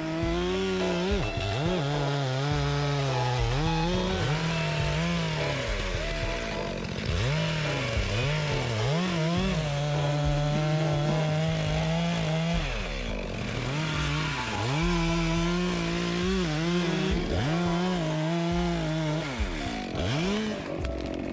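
Two-stroke chainsaw running at high revs while cutting wood. Its pitch repeatedly dips as it bogs down in the cut and then climbs back.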